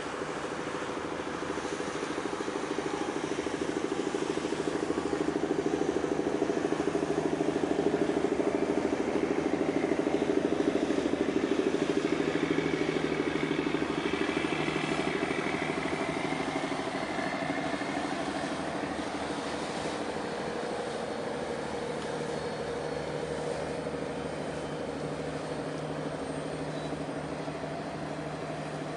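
Low, steady engine and machinery hum of a large LPG carrier passing close by. It swells to its loudest about ten seconds in and then slowly fades as the ship moves on.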